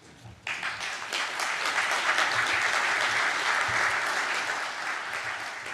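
Audience applauding, starting abruptly about half a second in, swelling, then dying away near the end.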